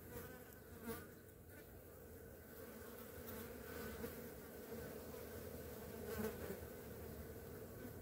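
Flies buzzing close by, a steady wavering drone, broken a few times by short faint taps or thumps.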